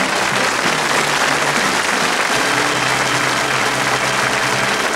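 Studio audience applauding over band play-off music, with low held notes that change every second or so.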